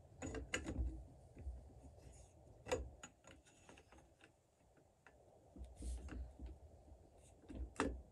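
Light metal clicks and handling rattles as an AR-15 castle nut and end plate are fitted and threaded by hand onto the buffer tube, with the sharpest clicks about half a second in, near the middle and near the end.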